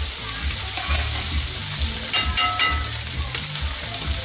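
Leftover mashed potatoes and rib steak sizzling as they fry in two skillets, with a brief clink about two seconds in.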